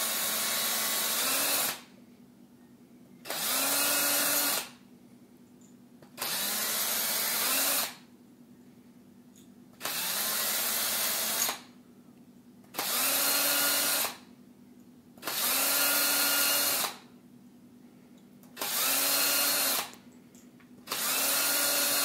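Small electric drill with a 1/16-inch bit boring holes through the bottom of a plastic storage tube: eight short runs, each beginning with a rising whine as the motor spins up, with pauses of one to two seconds between holes.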